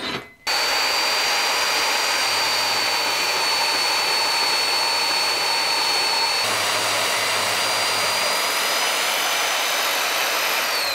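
Bandsaw running and cutting through the end of a forged steel bar: a steady dense hiss with a thin high whine on top, at an even level throughout. The sound shifts slightly about six seconds in.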